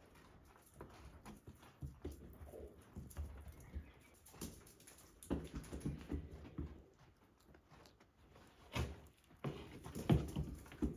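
Goats moving about in a small room: irregular soft knocks and rustling, with the strongest knocks near the end.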